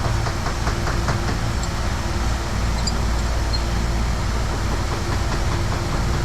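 A steady, low mechanical hum with a faint constant tone, with a few light clicks in the first second or so.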